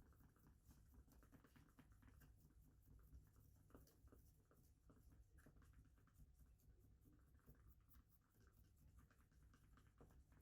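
Near silence: faint, irregular scratching and light clicks over a low room hum.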